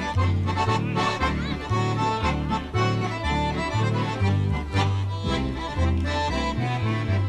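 Accordion ensemble playing a lively polka, with a steady bass beat alternating between two notes.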